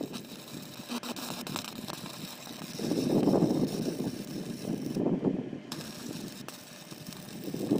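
Arc welding on a rebar cage, a steady crackling hiss that breaks off briefly about five seconds in and strikes up again. A louder rushing swell comes around three seconds in.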